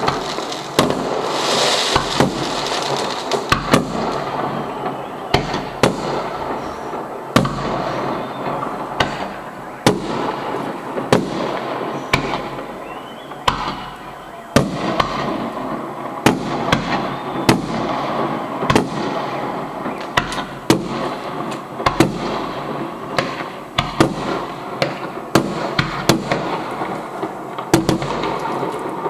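Fireworks display: sharp bangs of bursting shells about every second, over a dense continuous crackle.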